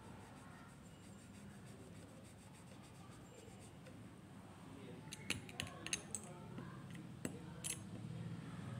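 Mostly quiet room tone, then from about halfway a scatter of light clicks and taps from a watercolour brush being handled between strokes.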